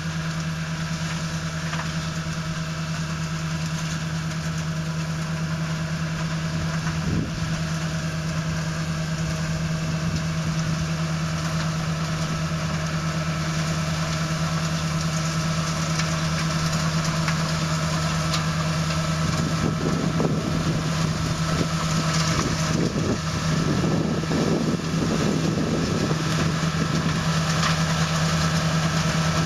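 Self-propelled grape harvester's diesel engine running steadily as it works along the vine row, getting gradually louder as it approaches. About two-thirds of the way through, an irregular rattling and rustling joins the engine hum.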